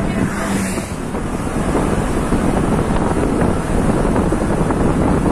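Wind buffeting the microphone of a camera carried in a moving vehicle, a steady loud rumble with road and engine noise underneath.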